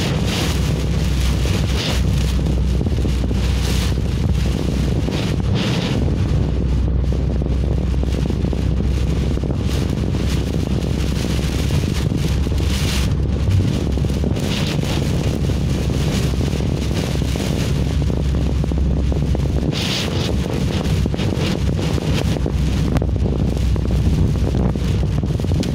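Storm wind buffeting the microphone in a moving car on a wet road: a steady low rumble, with hissing swells of wind and rain now and then.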